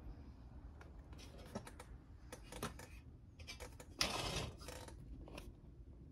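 Small metallic clicks and rattles from handling a Radius No.119 stove, with a brief louder scraping noise about four seconds in as a hand grips its knurled knob.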